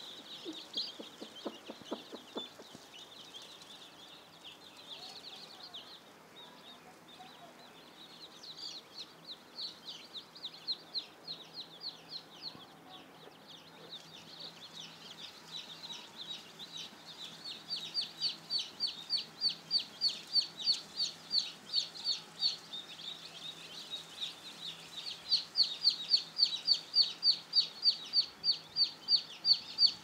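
A brood of Commercial Desi chicks peeping, many short high-pitched peeps overlapping. From the middle on one string of peeps grows louder and more regular, reaching about four or five peeps a second near the end.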